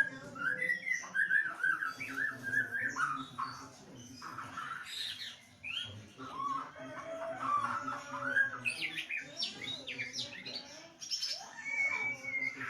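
White-rumped shama (murai batu) singing continuously: a long, varied run of whistled, warbling phrases that glide up and down.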